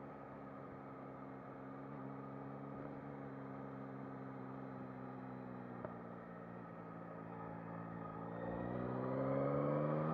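Yamaha MT-09 SP's three-cylinder engine, heard from on the bike, running steadily at low revs, then revving up as the bike accelerates over the last few seconds, its note rising and growing louder.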